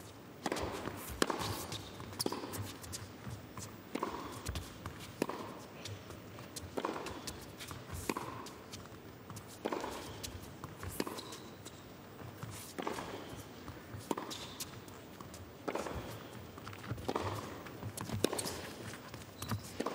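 Tennis rally: racket strikes on the ball trading back and forth about once every second or two, with the players' footsteps on the hard court between hits.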